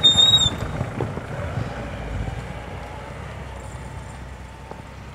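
A 4x4 SUV driving off through snow: engine running with crunching knocks from the tyres, fading steadily as it pulls away. A brief high whistle sounds at the very start.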